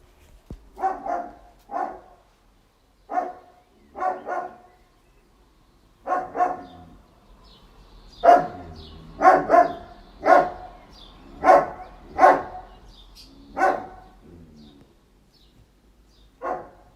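A dog barking repeatedly: about fifteen short barks, single and in quick pairs, a second or two apart, with a longer gap near the end before one last bark.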